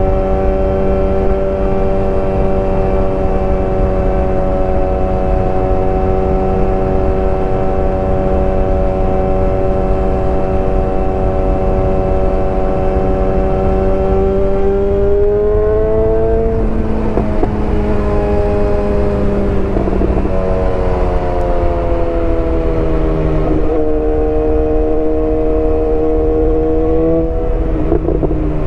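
BMW S1000R's inline-four engine running loud at steady revs for over ten seconds, then the revs rise and shift up and down in the second half.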